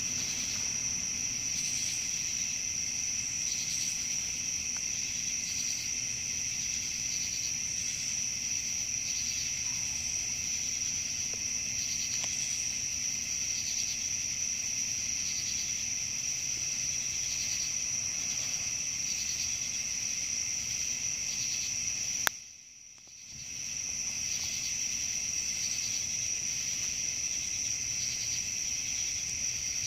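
Steady chorus of night-singing insects with a high, faintly pulsing trill. About two-thirds of the way through, a sharp click sounds, the chorus drops out for a moment, then it fades back in.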